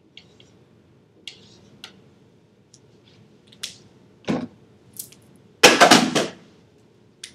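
Scattered light clicks and ticks from handling a marker at a whiteboard, with a knock about four seconds in and a louder, longer scraping rustle around six seconds in.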